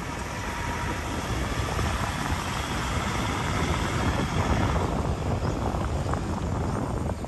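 Steady rumbling road noise of a slow-moving vehicle, mixed with wind buffeting the microphone.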